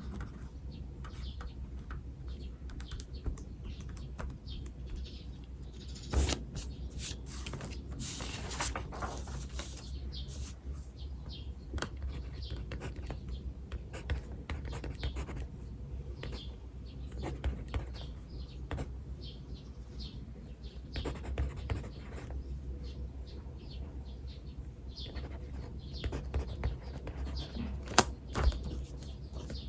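Writing on paper: short scratchy strokes and taps, with birds chirping in the background over a low steady hum.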